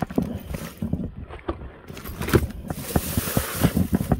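Fishing gear being rummaged through in search of a fish stringer: irregular clicks, knocks and rustles.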